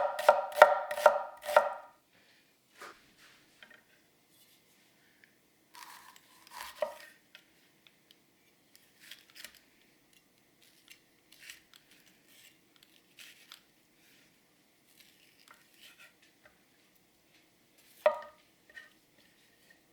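A 280 mm carbon-steel gyuto chopping on a cutting board. It opens with a quick run of knocks, about four a second, then goes on with scattered lighter cuts and taps, with a louder knock about seven seconds in and another near eighteen seconds.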